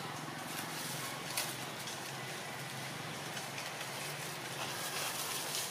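Steady outdoor background hiss with a few faint clicks and light rustles.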